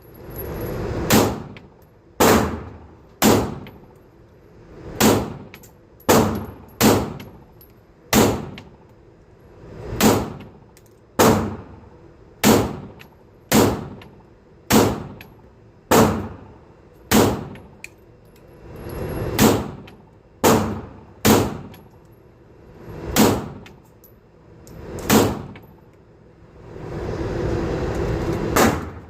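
Pistol fired one shot at a time, about twenty sharp reports at roughly one-second intervals with a few longer pauses, each with a short ringing tail. Near the end a rushing noise swells up.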